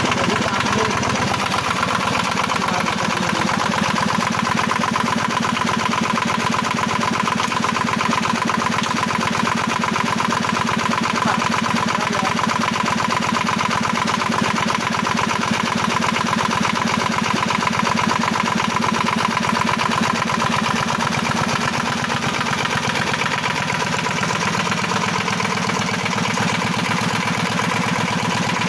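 Multicar M22's air-cooled two-cylinder diesel engine running steadily on the ground outside its vehicle, an even chugging with a thin steady whine over it.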